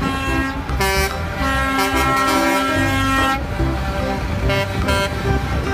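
Air horns of concrete mixer trucks honking, with a long blast starting about a second in and lasting a couple of seconds, then shorter toots near the end, over the low rumble of the trucks' engines.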